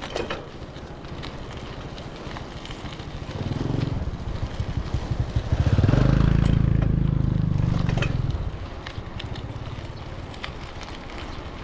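Bicycle riding noise, with small rattles and crackles over the road. A louder low rumble swells about a third of the way in, peaks for a few seconds in the middle, then fades.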